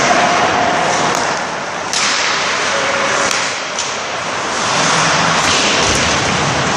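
Ice hockey play at a rink: a steady rushing noise with sharp cracks of sticks on the puck, the loudest about two seconds in and lighter ones scattered through.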